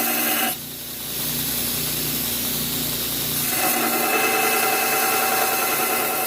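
Power grinder grinding the edge on a forged steel knife blade. The grinding sound drops out about half a second in, leaving a lighter running sound, and comes back about three and a half seconds in.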